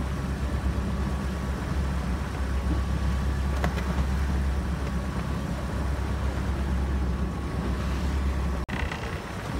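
Small fishing boat's engine running steadily under way at slow trolling speed, a constant low rumble with wind and water noise over it, broken off sharply for a moment near the end.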